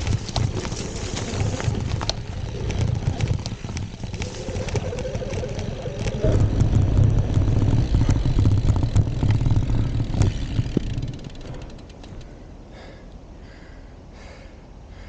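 Electric BMX ridden off-road: tyres rumble and the bike clatters over rough ground, with the motor's whine rising in pitch about four to six seconds in. The rumble is loudest in the middle, then dies down after about eleven seconds as the bike slows.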